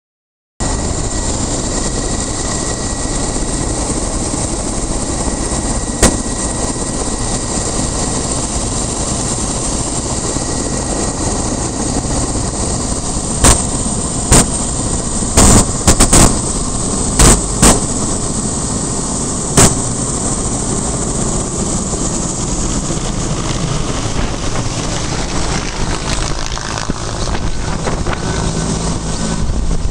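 Mi-8 helicopter's twin turbines and main rotor running close by: a loud steady rush with a high turbine whine. Several sharp knocks come midway. Near the end the sound shifts as the helicopter lifts off and passes overhead.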